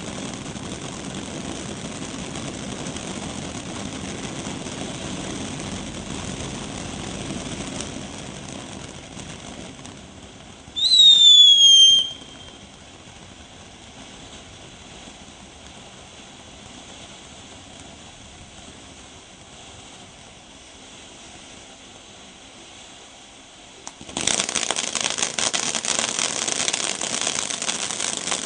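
A 500 g multi-effect firework fountain spraying sparks with a steady hiss. Partway through, a loud whistle sounds for about a second, falling in pitch. Near the end, loud, dense crackling takes over.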